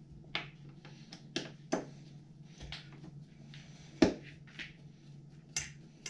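Scattered small sharp clicks and taps of a screwdriver and screw at a washing machine door hinge as the door is rehung and its first hinge screw is put in, over a faint low steady hum.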